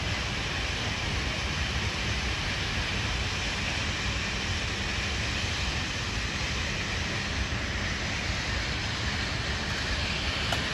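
Dam's automated debris rake and conveyor belt running with a steady, freakishly loud mechanical noise, which the listener suspects is brushes scraping the underside of the conveyor belt where it unloads.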